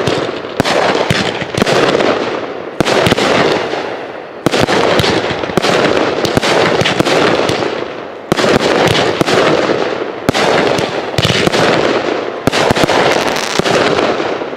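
Aerial fireworks bursting one after another, about eight loud booms, each followed by a crackling tail that fades before the next.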